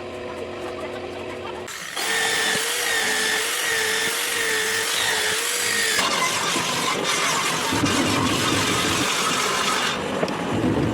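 Power tool running through wood, with a wavering motor tone under the cutting noise. The sound gets louder suddenly about two seconds in and changes abruptly twice more, like a series of short cuts.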